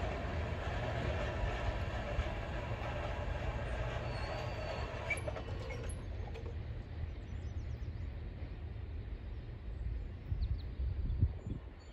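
CSX mixed freight train's cars rolling over the rails at a grade crossing, a steady clattering rumble that thins out about halfway through as the train moves off, leaving a low fading rumble and a few low thumps near the end.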